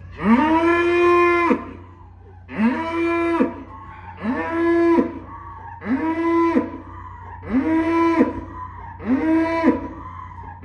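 A small male panda cow mooing six times in a row. The first moo is long, and the others are shorter and come about every second and a half. Each one rises in pitch at the start, then holds steady.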